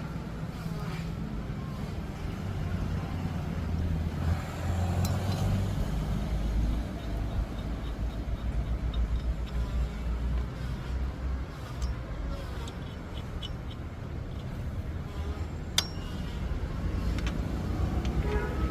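Low, steady vehicle rumble, with a few sharp metallic clicks about five seconds in and again near the end.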